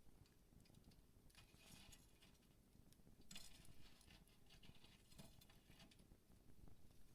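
Wood campfire burning quietly, with faint scattered crackles and a few soft pops from the wood.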